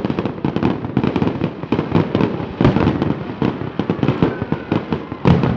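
Fireworks display: many aerial shells and crackling effects going off in rapid, overlapping succession, a dense run of bangs. A heavier blast comes near the end.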